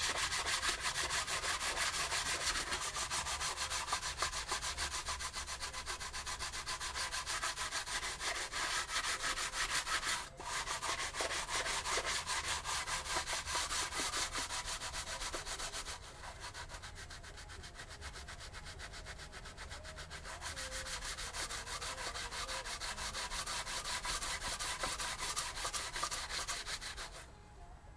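Fine-grit sandpaper on a hand block rubbed back and forth in quick strokes over the cast-iron deck of a Renault F7P engine block, taking old head-gasket crud off the surface. The rubbing breaks off briefly about ten seconds in, goes quieter for a few seconds in the middle, and stops shortly before the end.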